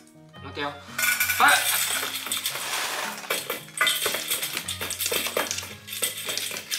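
A small Shiba Inu eating dry kibble from a stainless steel bowl: rapid clinks and rattles of kibble against the metal, over background music.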